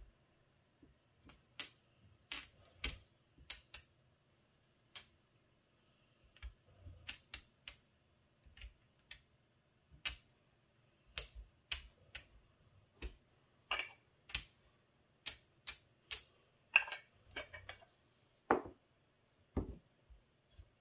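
Casino chips clicking as they are taken off a stack and set down on a felt craps layout: scattered sharp clicks, some in quick pairs, every half second or so.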